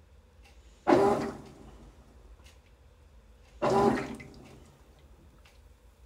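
GE GTW465ASN1WW top-load washing machine agitating a load of towels in soapy water. Two sudden swishing wash strokes come about three seconds apart; each is a surge of churning water that fades over about a second.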